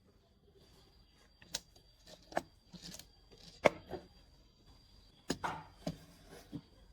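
Scattered sharp knocks and clicks of handling, about half a dozen, the loudest nearly four seconds in.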